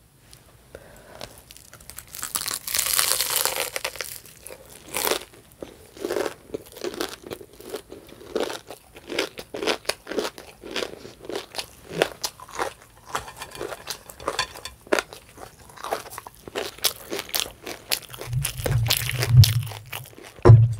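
Close-miked eating: a crunchy bite about two seconds in, then steady chewing with many small crunches, about two a second. A low hum comes in near the end.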